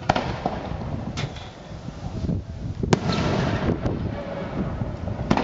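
Fireworks going off: four sharp bangs, the loudest about three seconds in, each followed by a rolling echo, over a steady low rumble.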